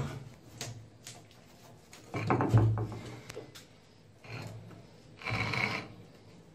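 Stainless steel sink being lowered and pushed into its seat on a stone countertop, the sheet metal scraping and knocking against the stone in a few short bursts. The loudest comes a couple of seconds in.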